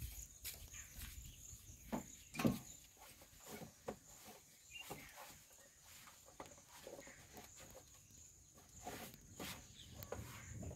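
A cloth wiping over tractor bodywork and the steering wheel and dashboard, heard as faint, irregular rubbing strokes and small knocks.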